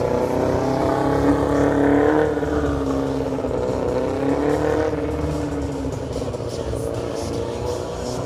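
Stunt sport motorcycle engine running at high revs under constant throttle. The pitch climbs to a peak about two seconds in, eases back, swells again a couple of seconds later, then settles lower.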